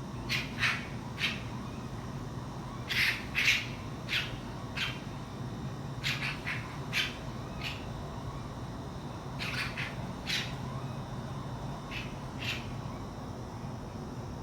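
An unidentified animal giving short, harsh calls in loose groups of two to four, about sixteen in all, with a steady low hum underneath.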